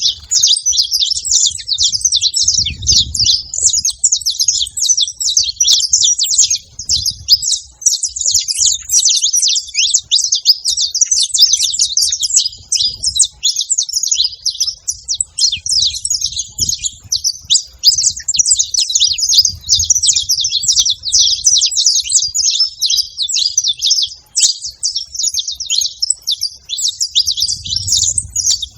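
Several saffron finches chirping and singing together, a dense unbroken stream of rapid high notes.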